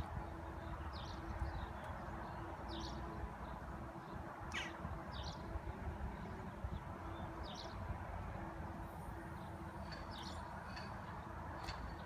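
Small birds chirping now and then, short high chirps every second or two with one quick falling call about four seconds in, over a steady low outdoor background noise.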